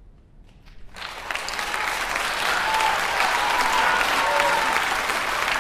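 Theatre audience applause breaking out about a second in and quickly building to steady, full clapping as the play ends in blackout.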